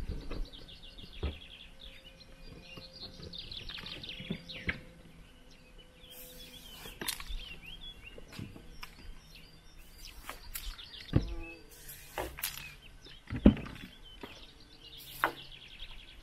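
Several short hisses of an aerosol spray-paint can. Birds are chirping and trilling around them, with a few low thumps.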